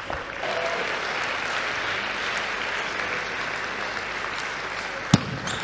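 Spectators applauding with steady clapping. Near the end comes a single sharp click of a table tennis ball being struck.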